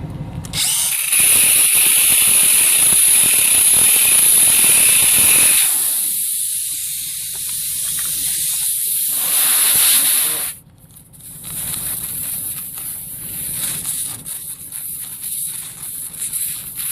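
Air hissing out of a punctured tire through the hole just drilled out with a 1/8-inch bit. The hiss is loud and high-pitched, and it cuts off suddenly about ten seconds in, leaving quieter handling noise.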